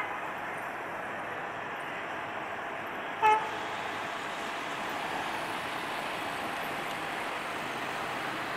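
Steady hum of road traffic with one short horn toot about three seconds in.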